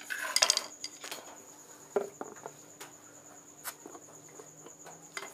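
A plastic perfume bottle being handled and its cap worked open with a thin metal tool: scattered light clicks and taps, with a brief squeak near the start.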